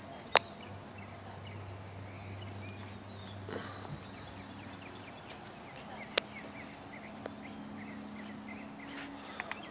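Birds chirping in the background over a faint steady low hum, with two sharp clicks, one about half a second in and one about six seconds in.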